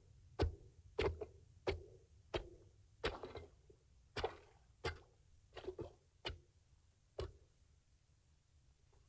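Ice chisel striking and chipping through pond ice to open a fishing hole: about a dozen sharp blows at an uneven pace of one or two a second, which stop about seven seconds in.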